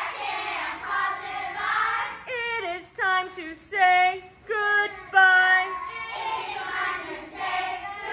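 A group of children singing together, with a run of short, separate sung notes in the middle.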